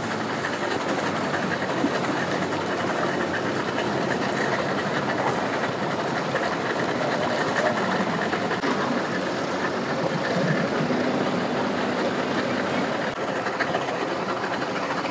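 Boat outboard motor running loud and rough at idle, with a fast clatter; the engine is smoking heavily.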